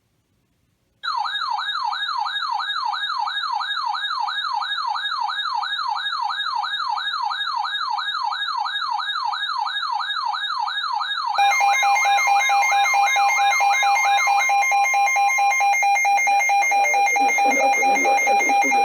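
Electronic alert tones. A warbling siren-like tone sweeps up and down about three times a second. About eleven seconds in, a steady Emergency Alert System attention tone joins it and holds on alone after the warble stops, announcing the alert that follows.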